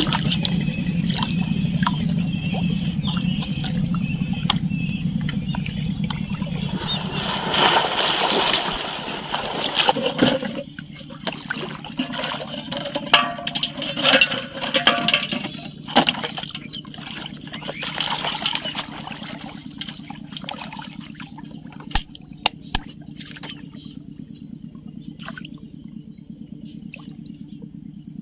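Water trickling and sloshing, with many sharp clicks and knocks in the middle and a steady low hum underneath. A few short rising chirps come near the end.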